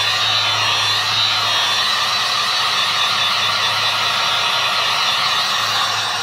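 Handheld electric heat gun running on its lowest setting: a steady fan hum with a wide rush of air, easing slightly near the end.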